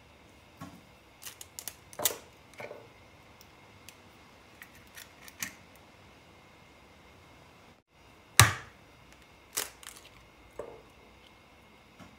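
Eggs cracked one after the other on the rim of a small white ceramic bowl. There are two sharp knocks, one about two seconds in and a louder one past the middle, each followed by small cracks and clicks as the shell is pulled apart.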